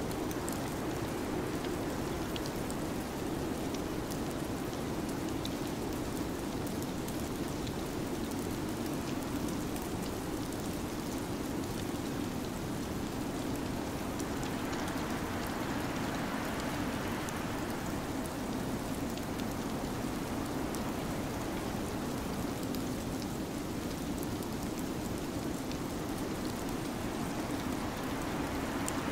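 Steady, rain-like hiss of a winter-storm ambience track, swelling a little in the middle.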